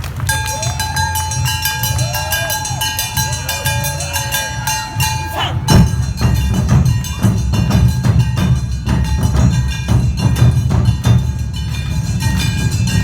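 Awa Odori festival band playing: kane hand gongs ringing and taiko drums beating, the strikes growing louder about six seconds in.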